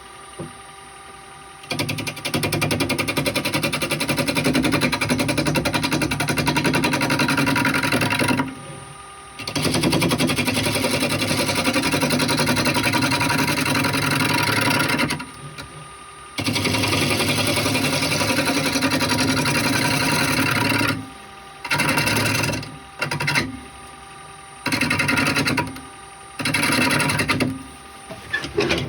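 Wood lathe running with a steady hum while a turning tool cuts the spinning wooden blank. There are long stretches of cutting noise broken by short pauses, then shorter cuts of a second or two near the end.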